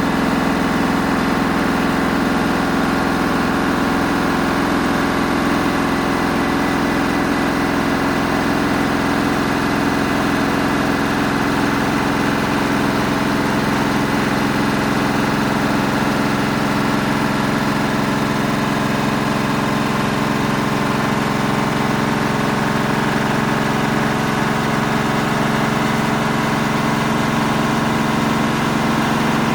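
Samsung EcoBubble front-loading washing machine running steadily, its drum spinning with a continuous, even motor hum.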